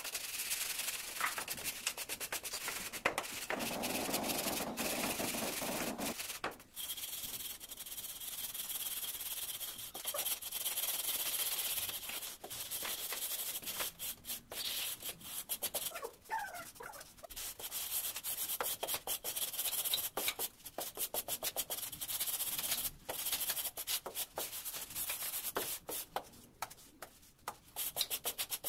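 A straightedge scraped back and forth over a sandy mortar bed, levelling the floor before tiling: a gritty scraping in repeated strokes with short breaks between them.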